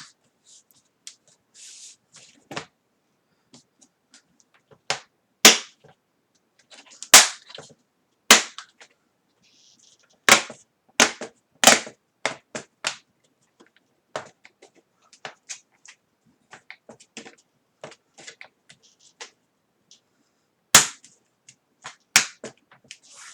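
Plastic screen bezel of a Dell Latitude 5580 being pressed back onto the lid, its clips snapping into place: a string of sharp, irregularly spaced clicks with several louder snaps.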